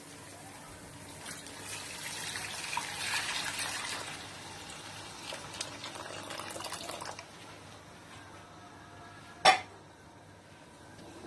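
Chicken broth being poured into a cooking pot, a splashing pour that dies away about seven seconds in. Near the end, a single sharp knock.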